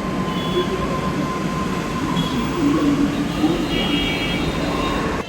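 Steady rumbling noise of a moving vehicle, with faint thin tones and a wavering hum riding on top.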